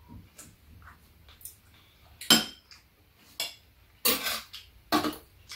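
Metal spoons clinking and scraping against ceramic bowls and a metal tray during a meal: scattered sharp clinks, the loudest about two seconds in, and a few more near the end.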